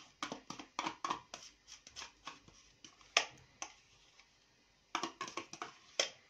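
Metal spoon scraping and tapping yogurt out of a plastic tub into a glass bowl. It makes a quick run of short scrapes and clicks, with one louder tap about three seconds in, then a brief pause and another quick series near the end.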